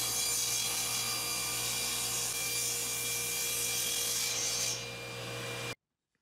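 Power saw ripping plywood into strips: a steady hum under a strong hissing cutting noise. The high cutting noise thins out just before five seconds, and the sound cuts off suddenly near the end.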